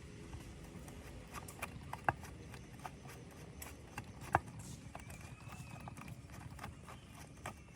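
Scattered light clicks and knocks of tools or saw parts being handled, irregular, with two sharper knocks about two seconds in and about four and a half seconds in, over a faint low hum.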